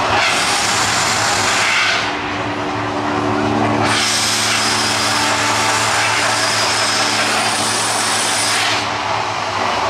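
Mirage volcano show's eruption jets in two rushing bursts: one of about two seconds at the start, then a longer one of about five seconds from about four seconds in, each cutting in and off sharply. Low steady tones run beneath them.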